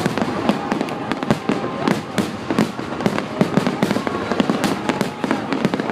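Fireworks display: many shells bursting and crackling in quick succession, a dense run of sharp bangs with no pause, with crowd voices faintly underneath.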